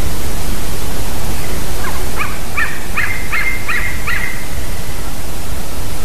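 An eaglet calling: a run of about six short whistled calls, each dropping in pitch, about two seconds in, under a loud steady rushing noise.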